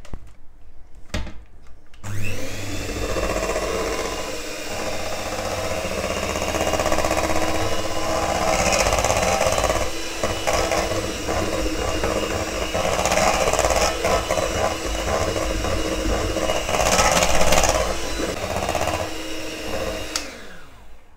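Electric hand mixer running steadily, its beaters whisking a thick cream and banana mixture in a stainless steel bowl. It starts about two seconds in and stops about a second before the end.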